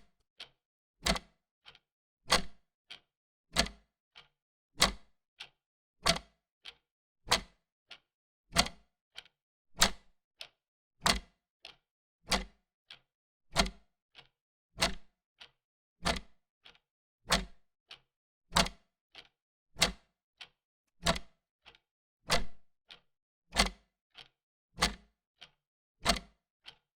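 Wall clock ticking steadily, with alternating louder and softer ticks, a tick-tock pair about every one and a quarter seconds.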